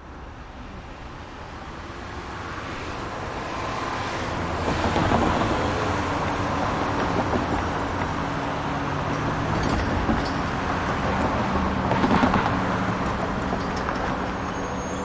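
Suburban street traffic: motor vehicles running and passing, fading in at the start, with louder passes about five seconds in and again about twelve seconds in over a steady engine hum.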